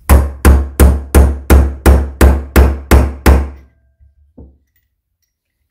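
About ten even hammer blows on a steel drift, roughly three a second, driving a Triumph Trident T160 rocker shaft home into its aluminium rocker box through a sleeve tool that compresses the shaft's O-ring oil seal. One faint knock follows about four seconds in.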